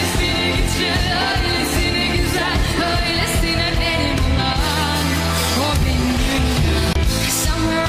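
Pop song with a singing voice over a steady beat and bass.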